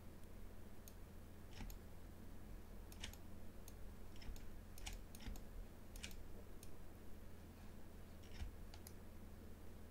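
Faint, irregular clicks from a computer mouse and keyboard as a 3D view is navigated, over a low steady hum.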